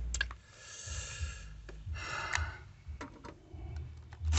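Cordless drill-driver run in short, soft bursts on a TV-bracket screw that is hard to start, with small clicks of the bit and the metal bracket.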